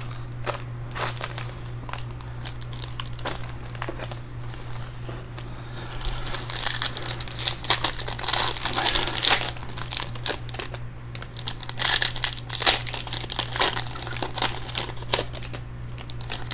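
Foil wrappers of Panini Select trading-card packs crinkling as they are handled and opened by hand. Light scattered rustles and clicks at first, then dense crinkling from about six seconds in.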